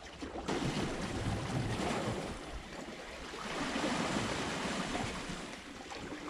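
Sea waves washing against the rocks below, surging twice.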